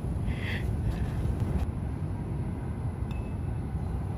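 Steady low outdoor background rumble, with a brief soft hiss about half a second in.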